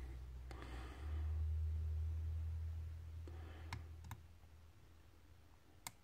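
A hook pick working the pin tumblers of a lock cylinder held under tension: a few faint, sharp clicks in the second half, the clearest near the end. A low rumble starting about a second in and lasting about two seconds is the loudest sound.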